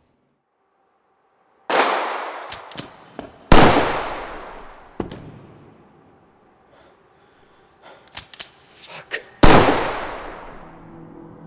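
Three loud pistol shots, two close together near the start and a third near the end, each with a long echoing tail as in a large hall, with a few lighter clicks and knocks between them.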